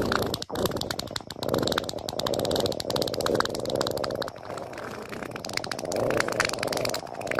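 Long, buzzy, rattling stomach-growl and fart noises, nearly unbroken apart from a brief gap about half a second in.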